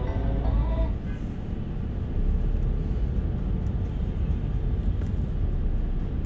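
Steady low rumble of engine and tyres inside a Mercedes-Benz car driving on a wet city street. The tail of a piece of music fades out about a second in.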